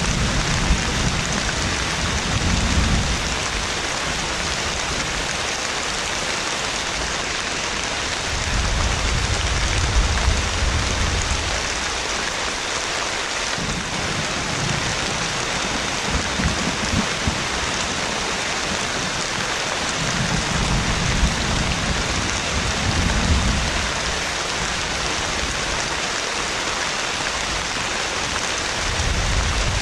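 Heavy rain falling steadily, with low rolls of thunder rumbling in and out several times.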